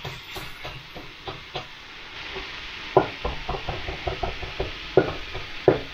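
Chef's knife chopping parsley on a wooden chopping board: a run of quick, uneven knocks of the blade on the wood, growing louder from about three seconds in.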